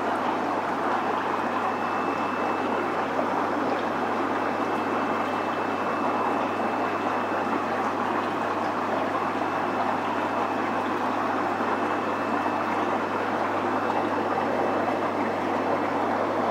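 Aquarium water circulation, a steady rush and trickle of water with a low steady hum underneath.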